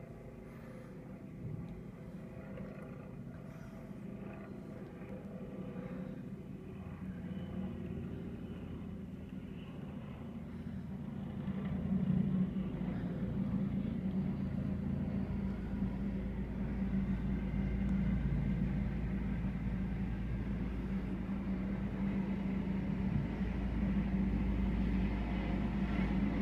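Air ambulance helicopter approaching and descending to land, a steady hum with a low rumble that grows louder, most sharply about halfway through as it comes close.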